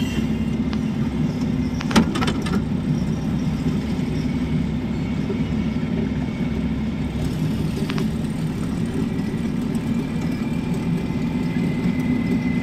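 Car engine and tyre noise heard from inside the cabin while driving at a steady speed, with one sharp click about two seconds in.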